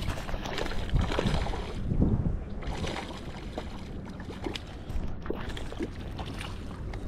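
A hooked fish thrashing and splashing at the water's surface as it is reeled toward the bank, in irregular splashes. Wind rumbles on the microphone throughout.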